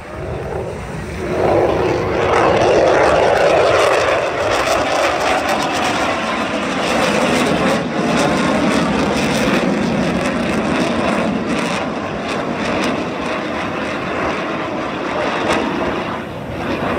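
Jet noise from the F-22 Raptor's twin Pratt & Whitney F119 turbofan engines as the fighter flies a demonstration manoeuvre. The rumble swells sharply about a second and a half in and stays loud throughout.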